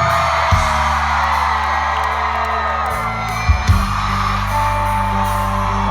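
Concert crowd cheering and whooping over a live band holding a sustained bass groove, with a few drum hits.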